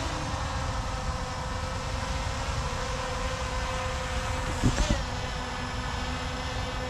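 Quadcopter fishing drone flying in and hovering, its propellers making a steady buzz of several tones. A couple of sharp knocks about two-thirds through.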